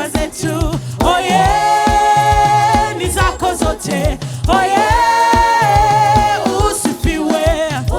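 Gospel worship song: singers holding long notes over a steady drum and bass beat.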